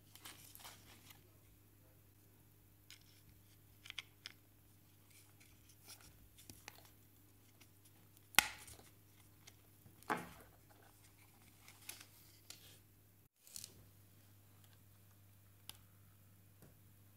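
Scattered small clicks, taps and scrapes of hands fitting electrical parts into a thin plywood panel: push-on wire connectors onto a metal push-button switch's terminals and a rubber cap onto a DC jack. The two loudest are sharp knocks about eight and ten seconds in, over a faint steady hum.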